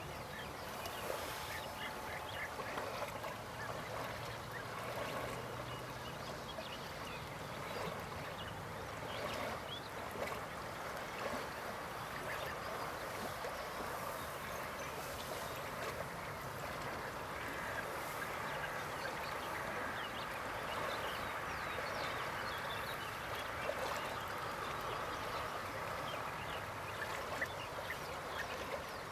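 European bee-eaters calling: many short rolling calls, repeated throughout over a steady background hiss.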